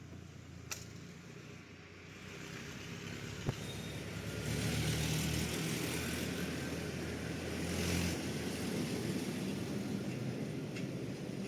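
A motor vehicle's engine running steadily, growing louder from about two seconds in and loudest around eight seconds, with a sharp click shortly before it swells.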